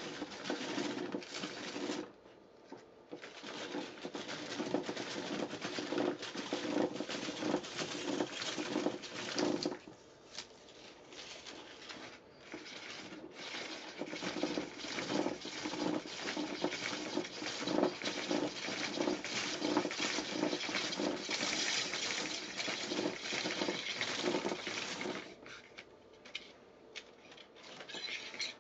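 Plastic double film-processing spiral turned by its centre knob as 16 mm film is wound into its grooves: a dense, rapid clicking and rasping of film and plastic, stopping briefly a few times between turns.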